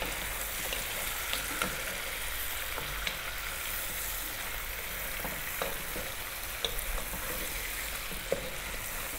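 Lamb pieces sizzling and frying in oil with onion and garlic in a pot, stirred with a wooden spoon that clicks and taps against the pot now and then.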